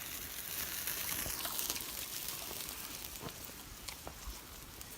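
Linguiça sausages sizzling over a campfire: a steady high hiss, strongest in the first couple of seconds, with scattered small crackles and pops.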